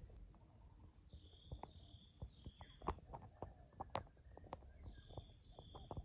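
Faint forest ambience: a steady high insect buzz, two short runs of small falling bird chirps, and scattered soft clicks and taps.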